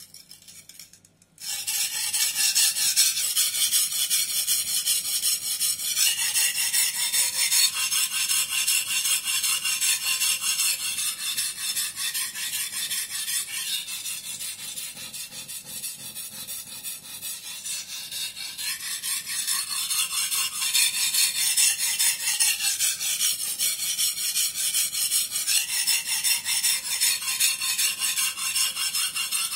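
Shirogami #1 carbon-steel gyuto blade stroked rapidly back and forth on a soaked Suehiro GC-3 #180 coarse whetstone, a continuous gritty scraping that starts about a second and a half in. This is coarse grinding to rebuild a dull edge and raise a burr.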